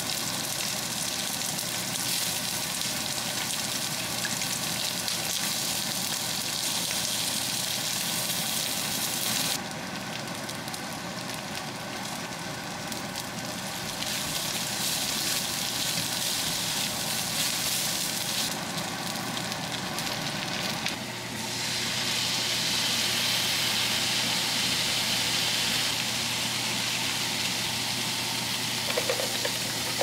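Sliced onion and minced garlic sizzling as they stir-fry in a frying pan. The sizzle thins out twice for a few seconds and is louder over the last third.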